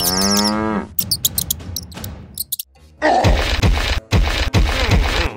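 A comic sound effect with a falling pitch, then a few clicks. About three seconds in, background music with a steady thumping beat starts.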